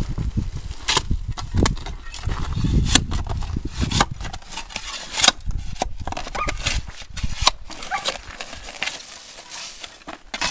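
Spade digging into gravel and stony soil around the base of a post: repeated scrapes and sharp hits of metal on grit and stone, with a low rumble under the first half.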